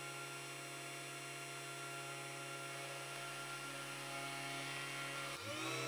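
Spindle motor of a 3018Pro desktop CNC mill running with a steady hum while a V-bit mills isolation grooves into a copper-clad circuit board. About five seconds in, the hum glides up in pitch and settles slightly higher.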